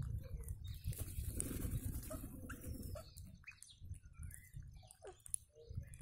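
A flock of rose-ringed parakeets feeding on the ground. Scattered short squeaky calls come mostly in the second half, over soft rustling and pattering of wings and feet in the first half.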